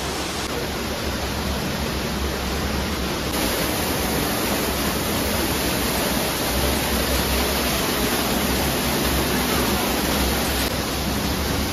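Water rushing down a small waterfall in a rocky gorge, a steady, even hiss.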